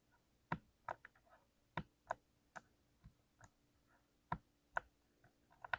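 Keystrokes on a blue-switch mechanical keyboard: single, unhurried key presses clicking at irregular intervals, with a quick run of several presses near the end.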